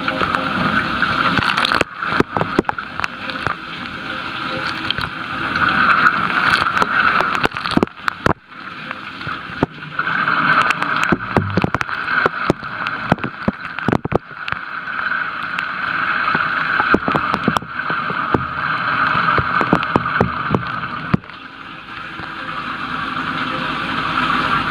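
Water spraying and splashing inside a running KitchenAid dishwasher, a steady rush that swells and fades every few seconds, with scattered sharp spatters against the tub and racks. Only the lower spray arm is spraying; the upper spray arm is not working.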